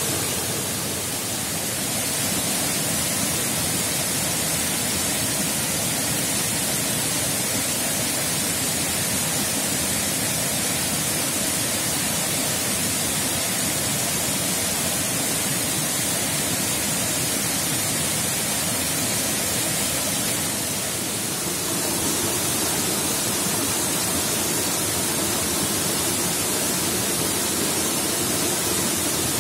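Small forest waterfall and rocky stream rushing steadily: a constant hiss and splash of falling and running water, briefly a little softer twice.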